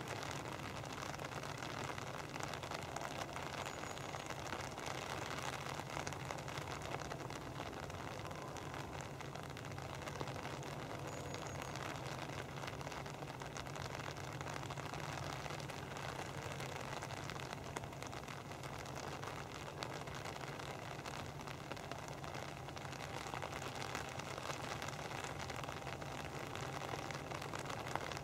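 Steady rain falling and pattering on an umbrella, with the distant sound of a steam locomotive, the LMS Royal Scot class 4-6-0 No. 46100, approaching under steam.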